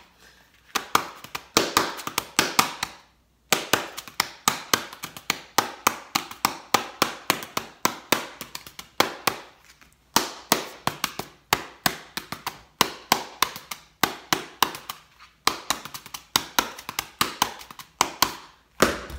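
Rhythmic hand slaps and taps, a flat object struck against the palm, beating out a church praise-break tambourine pattern ("pop pop, down up" with doubles) without a tambourine. Quick sharp strokes, several a second, in phrases broken by short pauses.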